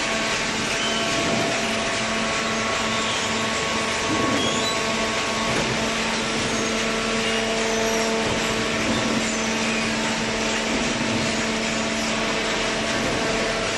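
Hydraulic cardboard baler running: a steady machine drone with a constant hum that holds level throughout.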